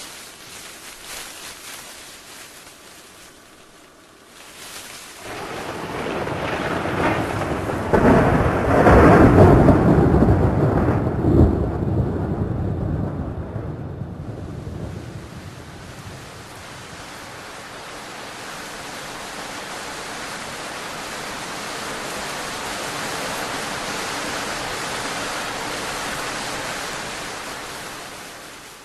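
A long roll of thunder, swelling about five seconds in and rumbling away over roughly ten seconds, followed by the steady hiss of rain that builds slowly and fades near the end.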